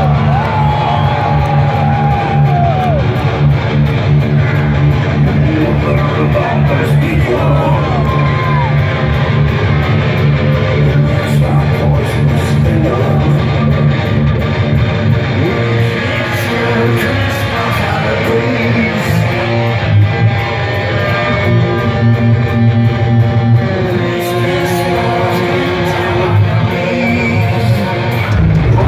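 Live electric guitar playing a slow melodic solo intro with bends and sustained notes through a loud concert PA, over a steady low drone.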